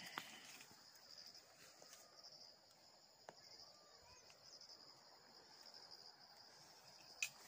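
Faint, steady high-pitched trilling of insects, with a couple of soft clicks.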